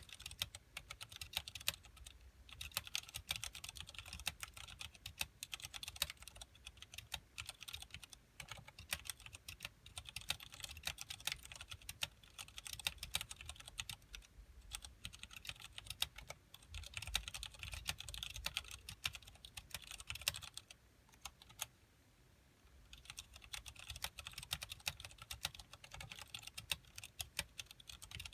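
Typing on a KBParadise V60 mechanical keyboard with Cherry MX Clear tactile switches, an acrylic case and PBT keycaps: fast, irregular keystrokes, with a short pause of about two seconds near the end before typing resumes.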